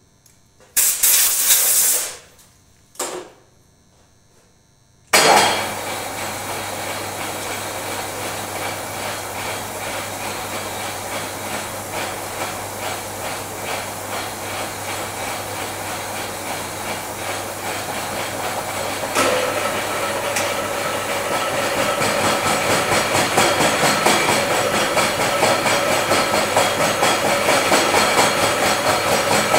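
Two short blasts of compressed air from a blow gun, then the milling machine's spindle motor starts suddenly about five seconds in and runs steadily with a hum and a fast even rhythm. From about two-thirds of the way in the sound grows louder and rougher as the face-milling cutter works the surface of the workpiece.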